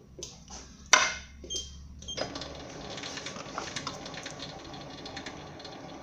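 A few sharp mechanical clicks, then a SIEG SC4 benchtop lathe starts up about two seconds in and runs with a dense, rapid ticking clatter from its drive.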